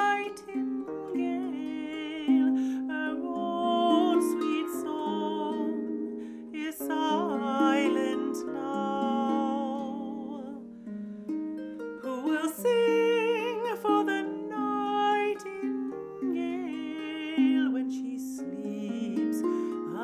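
Lever harp plucked in a slow ballad, with a woman's voice singing along in long notes that waver with vibrato.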